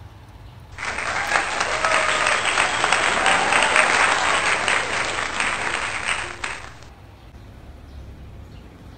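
Crowd applause, edited in as a sound effect: it starts abruptly about a second in and cuts off about six seconds later.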